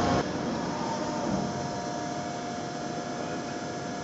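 Steady machinery hum and hiss with a faint, steady high whine.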